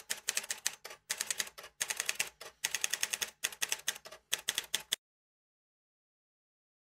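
Typewriter sound effect: quick runs of key strikes clacking as on-screen text is typed out, breaking off abruptly about five seconds in.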